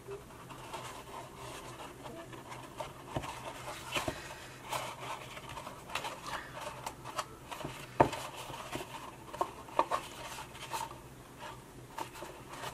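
Hands handling and pressing a glued paper box: paper rustling and rubbing, with scattered light taps and one sharper tap about eight seconds in.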